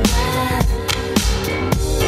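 Background music with a steady drum beat of bass drum and snare, about two beats a second.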